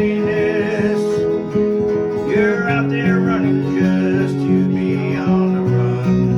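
Two acoustic guitars playing a country-folk song, picked and strummed, with a voice holding a long, wavering sung line over them.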